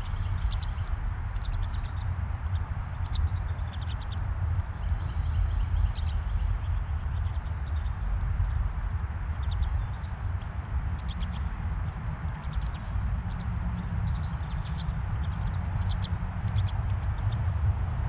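A flock of pine siskins chirping and twittering, many short high calls in quick succession, over a steady low rumble.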